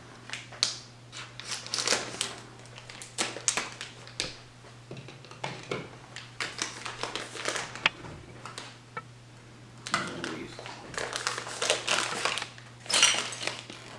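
Crinkly plastic packaging, likely the bag of chocolate chips, rustling and crackling in irregular bursts as it is handled.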